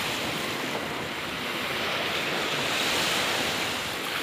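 Surf washing on the beach: a steady rushing noise that slowly swells and eases.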